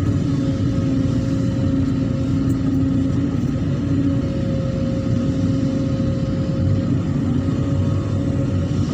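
An engine running steadily at a constant speed: a continuous low drone with an even hum above it.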